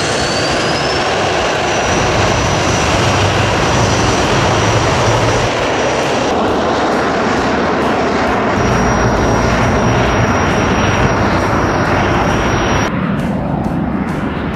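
Cirrus SF50 Vision Jet's single Williams FJ33-5A turbofan running at high power as the jet rolls down the runway: a loud, steady roar with a high turbine whine that rises in pitch in the first second and then holds. Near the end the roar turns duller.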